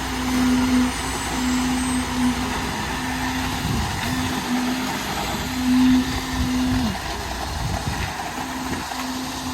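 Concrete truck's diesel engine running at raised revs during a concrete pour, a steady drone that breaks off and drops in pitch twice, about four and seven seconds in.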